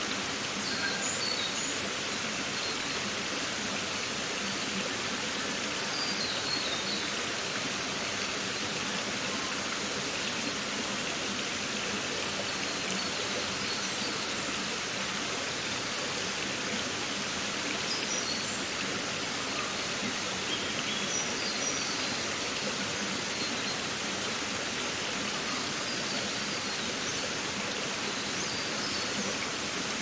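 A stream or brook running steadily, with small birds chirping briefly now and then.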